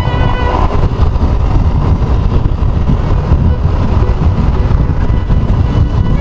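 Riding noise from a motorcycle moving at speed in traffic, a loud, steady, low rumble of wind and road with no music over it. The background music dies away right at the start.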